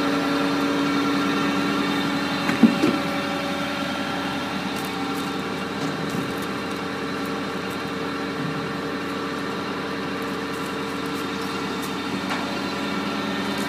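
Stanley Logger firewood processor's hydraulic power unit running steadily, idling without load between cuts. There is one sharp knock about two and a half seconds in.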